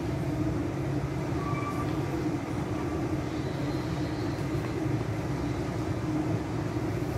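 Steady low hum and hiss of room background noise, even throughout, with no distinct handling sounds.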